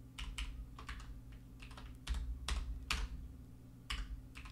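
Typing on a computer keyboard: a scattering of separate keystrokes, unevenly spaced.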